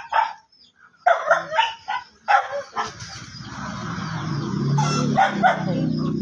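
A dog barking, a few short barks in the first half and again near the end, while a low hum grows steadily louder from about halfway through.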